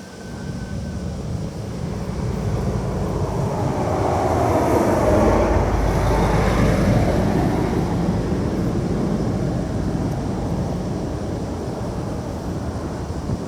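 A vehicle passing by, its noise swelling to a peak about five to seven seconds in and then fading.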